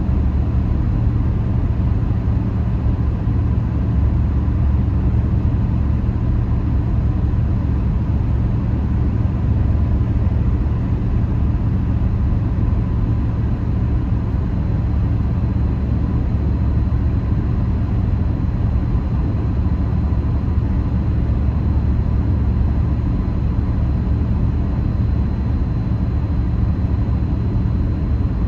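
Steady road noise of a car cruising at highway speed, heard from inside the cabin: a constant low rumble of tyres and engine, with a faint steady high whine.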